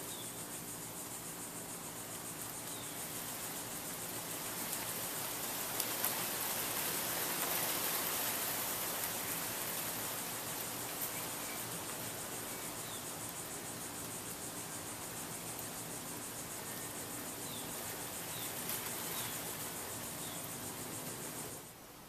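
Casablanca Columbia II ceiling fan running: a steady low motor hum under the airy whoosh of its turning blades, swelling between about four and ten seconds in. A high steady hiss sits over it, and the sound drops abruptly just before the end.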